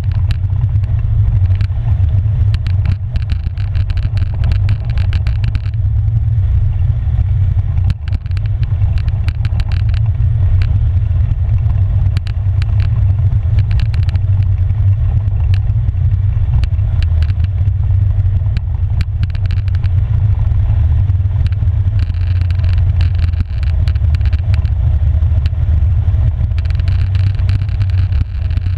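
Polaris Sportsman 570 ATV's single-cylinder four-stroke engine running at a steady, even pitch while riding a dirt and gravel forest road. Frequent short clicks and rattles come from the tyres and the machine jolting over stones.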